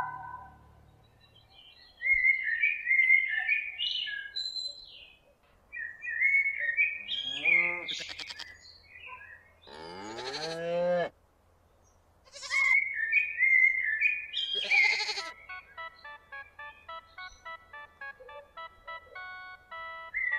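Sound-effect track of a mechanical nativity scene: birds chirping and twittering, two long sheep bleats about eight and ten seconds in, more chirping, then a melody of short, high notes near the end.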